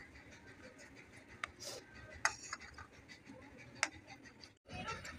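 A plastic spoon stirring custard powder into milk in a metal pan: faint scraping with a few light clicks against the pan.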